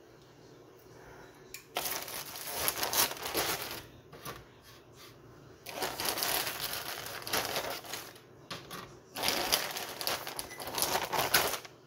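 A thin plastic bag crinkling and rustling as a hand rummages in it for frozen biscuits, in three spells of a couple of seconds each with quieter gaps between.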